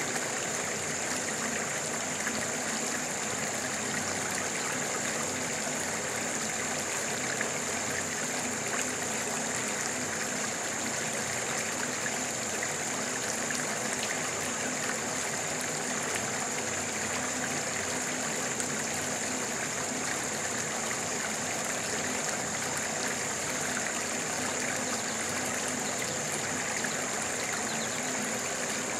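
A stream running steadily, with a steady high-pitched tone above the water sound.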